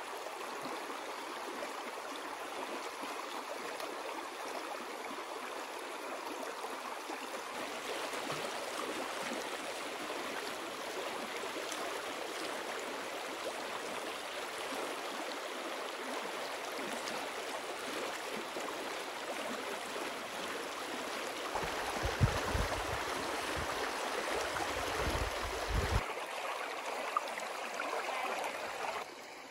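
Shallow stream running over rocks: a steady rushing and gurgling of water. For about four seconds near the end, a low rumble and a few sharp knocks come in over it.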